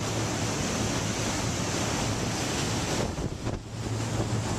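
Wind buffeting the microphone over a steady low hum, the wind easing briefly about three seconds in.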